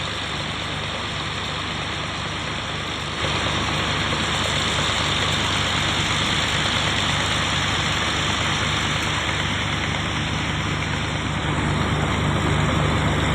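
Diesel engine of a drainage water pump running steadily, getting louder about three seconds in as it is throttled up.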